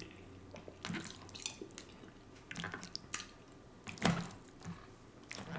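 Faint, close-miked wet chewing and mouth sounds of someone eating, with a few short clicks and scrapes of a metal fork in a plastic takeout bowl; the loudest click comes about four seconds in.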